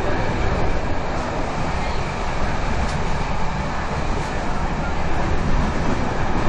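Steady running noise of an express train heard from inside the passenger carriage: wheels rolling on the rails and the coach's own rumble, even throughout.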